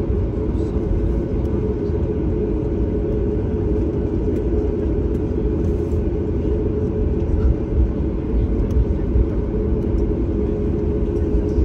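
Cabin noise inside a Boeing 737 MAX 9 taxiing after landing: a steady low rumble from its idling CFM LEAP-1B engines and the rolling wheels, with a few louder bumps about eight to nine seconds in.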